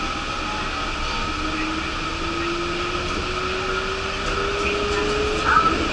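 Yurikamome rubber-tyred guideway train running, heard from inside its front car: a steady rolling noise of tyres on the concrete track with a whine rising slowly in pitch. A brief louder sound stands out about five and a half seconds in.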